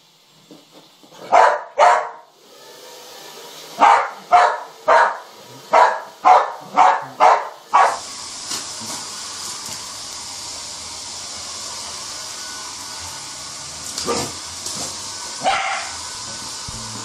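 A dog barking in quick sharp barks, about ten in the first eight seconds and two more near the end, against the steady rushing hiss of a hair dryer that grows louder and then runs evenly from about eight seconds in.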